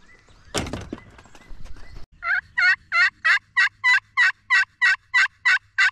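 Turkey pot call worked with a wooden striker, running a series of about a dozen evenly spaced hen yelps, about three a second, each breaking from a high note down to a lower one; the yelping starts about two seconds in, after a short knock.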